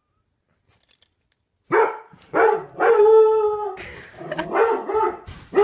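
A puppy gives a loud string of barks and howls after a quiet first second and a half, the longest call held for about a second.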